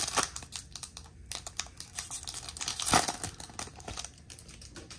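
Foil wrapper of a Topps baseball card pack crinkling and tearing as it is opened and the cards are pulled out, in dense irregular crackles with one loud crinkle about three seconds in. The crackling dies down near the end.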